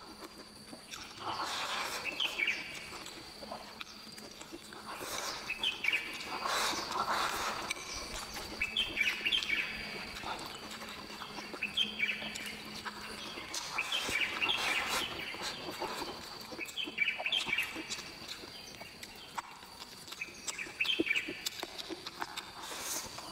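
Close-miked chewing and lip smacking as a person eats cured pork, with a few sharp clicks. A bird sings a short chirping phrase about every two to three seconds in the background.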